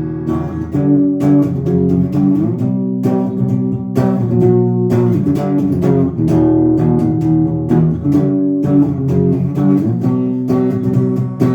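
Instrumental break of a rock song: guitars and bass guitar playing chords over a steady beat, with no singing.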